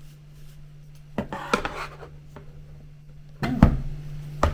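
Plastic clicks and a sharp knock from a selfie-stick tripod being handled and its tripod legs opened, the loudest knock about three and a half seconds in. Soft guitar music plays underneath.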